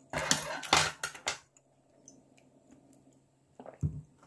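A quick run of clinks and taps of eating utensils on tableware, packed into the first second and a half, then a brief low sound near the end.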